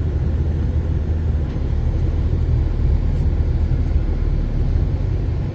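A vehicle running and driving along, a steady low rumble of engine and road noise.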